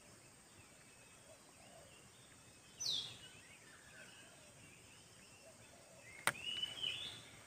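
Quiet riverside background with a bird's falling whistle about three seconds in. Near the end comes a sharp click, followed by a short chirping call.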